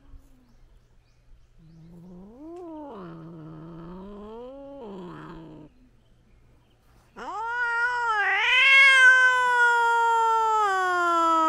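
Cats yowling at each other in a standoff before a fight. First comes a quieter, wavering yowl. After a short pause there is a loud, long yowl that rises and then slowly falls in pitch.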